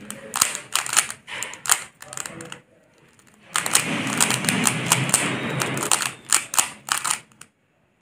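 Stickerless plastic 3×3 speed cube being turned fast by hand, its layers clacking in quick, irregular clicks. The clicks pause briefly about three seconds in and again just before the end.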